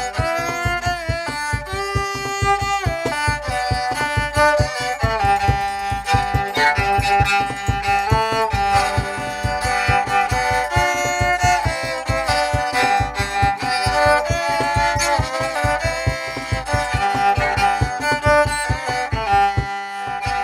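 Handmade rabeca, a Brazilian folk fiddle, bowing a lively melody, with a cajón beating a steady rhythm underneath.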